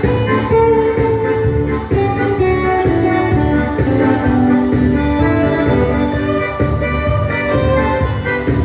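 Live dance-band music playing an instrumental passage with a steady beat under a melody line.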